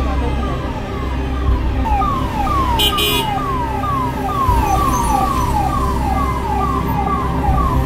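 Emergency vehicle siren sounding a repeated falling sweep, about two a second, over the low rumble of a vehicle engine. A short hiss cuts in about three seconds in.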